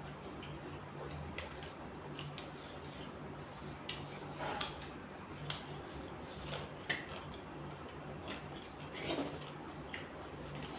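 Two people eating rice and curry by hand from stainless steel plates: scattered light clicks and scrapes of fingers on the metal, with wet chewing and mouth sounds. A steady low hum runs underneath.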